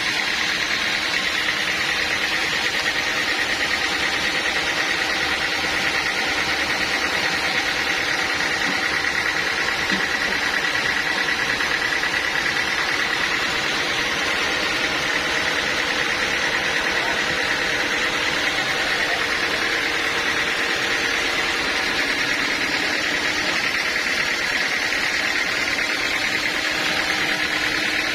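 Sawmill machinery running steadily: a constant mechanical drone with a steady high whine over it, holding the same level throughout.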